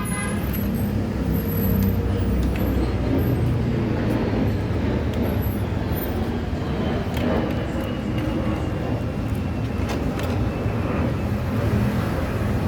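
Steady low rumble of road traffic passing, with a few light clicks of hand tools.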